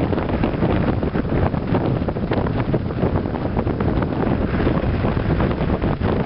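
Wind buffeting the microphone: a steady, loud low rumble with hiss.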